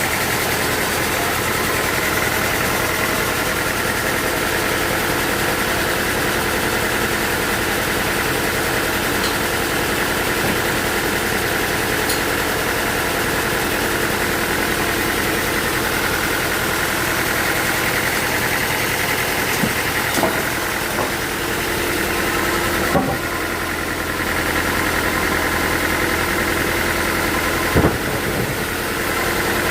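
Sawmill machinery running steadily, a constant hum with a higher whine above it. A few short sharp knocks come in the last third.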